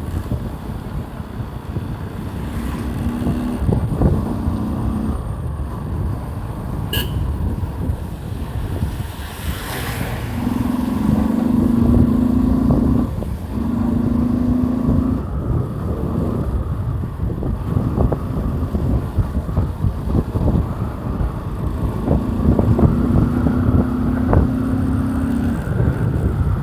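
Motorcycle being ridden, its engine note holding steady for a few seconds at a time, through what the title calls an air-filter intake sound, with heavy wind rumble on the microphone.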